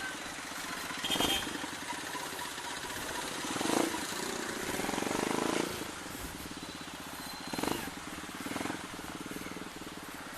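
Rusi KR125 motorcycle engine running under way, with road and wind noise and a few brief louder surges.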